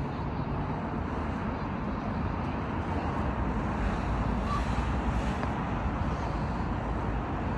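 Wind buffeting a phone's microphone outdoors: a steady low rumble with a constant hiss over it, swelling slightly midway.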